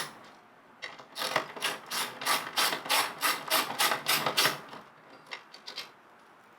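Ratchet wrench being worked in short, even strokes, about three clicking strokes a second, backing out the last door-panel bolt. The strokes stop a little over halfway through, followed by a few light clicks.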